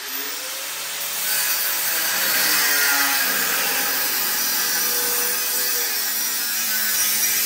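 Angle grinder with a cutoff wheel cutting through welded-on steel frame tubes, a steady grinding whose motor pitch dips and wavers as the wheel bites into the metal.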